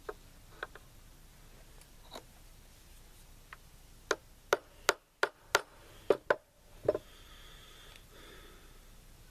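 Small hammer tapping a roll pin punch to drive the gas block roll pin: a few faint taps, then about eight sharp, uneven strikes, roughly two a second, in the middle.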